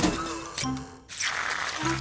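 Cartoon background music: short held low notes, with a brief hissing swell of a sound effect a little past halfway through.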